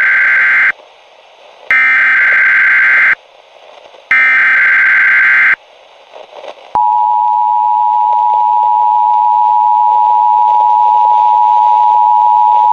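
Emergency Alert System broadcast tones: the end of one burst and two more bursts of the SAME digital header, buzzy data tones about a second and a half each, separated by short gaps. About seven seconds in, the steady two-tone EAS attention signal starts and holds; together they announce an emergency alert message.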